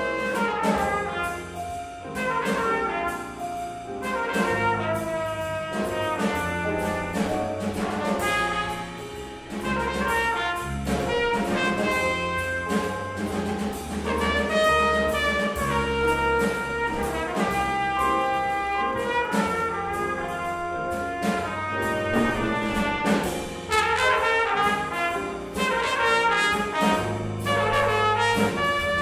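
A small jazz-blues band playing an instrumental passage: trumpet and saxophones carry the melody over piano, bass guitar and a steady drum-kit beat.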